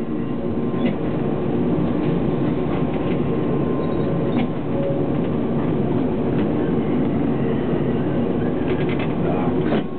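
Tatra T3 tram running slowly over the rails of a terminal loop: a steady rumble with a low hum, with a few sharp wheel clicks on the track, several close together near the end.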